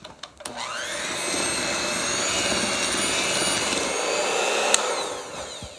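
Electric hand mixer beating shortcake batter: the motor whine rises as it starts about half a second in, runs steady, then cuts off with a click near the end and winds down.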